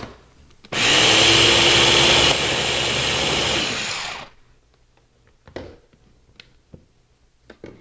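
Small top-motor electric food chopper running for about three and a half seconds, its blades whirring through mashed cauliflower. It drops a little in level about halfway, then winds down as it is released. A few light knocks follow as the jar is handled.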